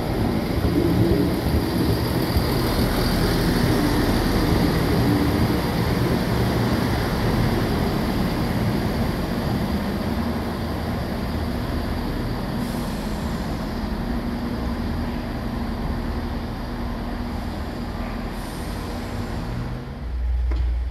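Class 170 Turbostar diesel multiple unit moving through a station platform, its underfloor diesel engines running with a steady hum that eases off slightly. Near the end a short low rumble comes in.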